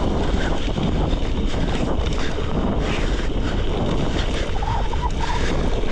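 Wind buffeting the microphone over the rumble and rattle of gravel bike tyres rolling on a dirt road, with a brief squeak near the end.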